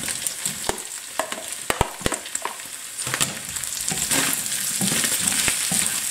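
Diced zucchini tipped from a plastic tub into a pan of frying minced meat and potatoes, the pieces landing with sharp taps over a sizzle. From about three seconds in, a wooden spatula stirs the pan and the noise grows louder.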